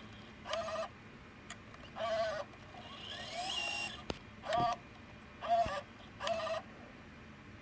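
Sony Digital8 camcorder's tape transport struggling to rewind: about six short whirring bursts that start and stop, one longer with a rising whine near the middle. The tape is having trouble rewinding.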